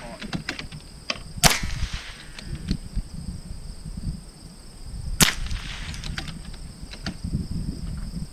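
.22 LR bolt-action rifle shots: two sharp cracks nearly four seconds apart, about a second and a half in and about five seconds in, with lighter clicks between them.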